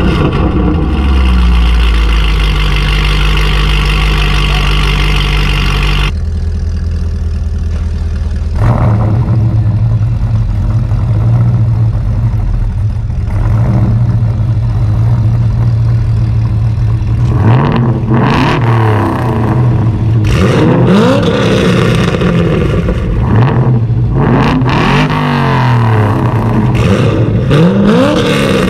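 LS V8 engine with an aftermarket exhaust idling and being revved: it falls back from a rev at the start, holds a steady idle, then gets a series of quick throttle blips that rise and fall in pitch.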